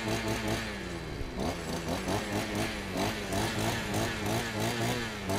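Small petrol engine running, its pitch rising and falling evenly about twice a second.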